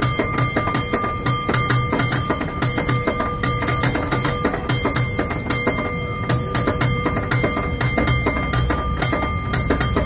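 San Francisco cable car bell rung by hand from its overhead pull cord in a fast, rhythmic contest routine, many sharp clangs a second.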